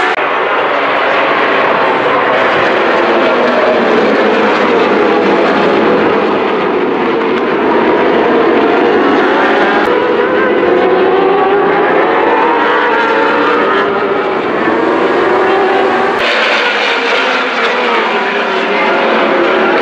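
Racing motorcycle engines running hard, several at once, their pitches overlapping and rising and falling as they rev and shift through the gears. The sound changes abruptly near the end.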